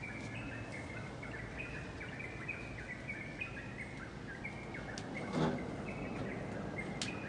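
Many small birds chirping in a garden, a steady stream of short high notes. A brief, louder, lower-pitched call sounds about five seconds in, and there are a few faint clicks.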